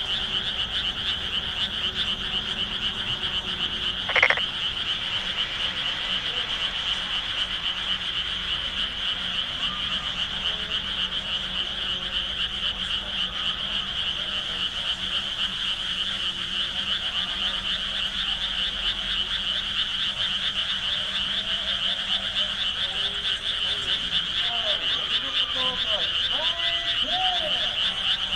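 Dense chorus of frogs croaking, a steady, high, rapidly pulsing trill. A brief sharp sound stands out about four seconds in, and faint rising-and-falling calls come through near the end.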